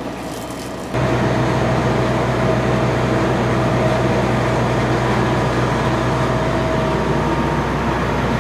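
Fire engine's diesel engine running its pump at steady revs: a constant drone with a low hum and a steady higher tone. It cuts in abruptly about a second in.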